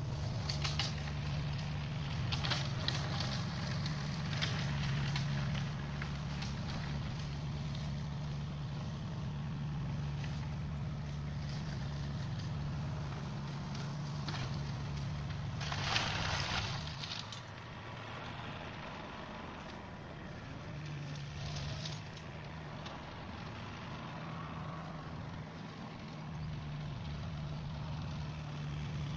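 New Holland TCE 50 tractor engine running steadily in the distance while it drives a flail mower through weeds. A brief rush of noise comes about halfway through; the drone then drops for a few seconds and comes back.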